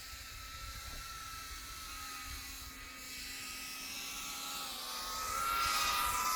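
Small FPV quadcopter's 1606 brushless motors and 3.5-inch propellers whining at a steady pitch, growing louder over the last couple of seconds as the drone comes in close.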